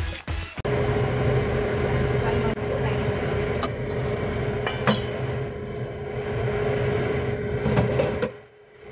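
Steady kitchen hum from a pot of water boiling on a gas burner, with a few light clinks of metal cookware.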